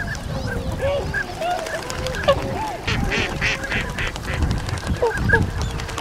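A flock of Bewick's swans and ducks calling on the water: many short honks and quacks overlapping, with a louder, harsher run of calls about three seconds in.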